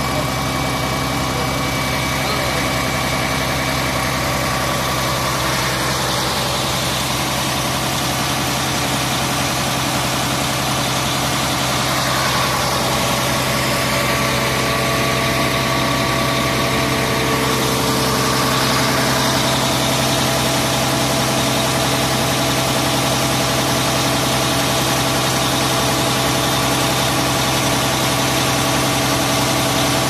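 Mercedes-Benz Actros truck engine running steadily, driving the hydraulics of the Dongyang concrete pump while its outrigger controls are worked. The sound grows a little louder about twelve seconds in.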